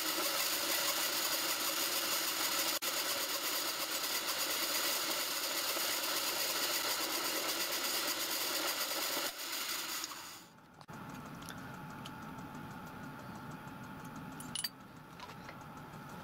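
Milling machine running as its end mill cuts a flat on the head of a brass stud held in a jig, a steady whine with many tones. About ten and a half seconds in it drops to a quieter, lower hum, with a single sharp click a few seconds later.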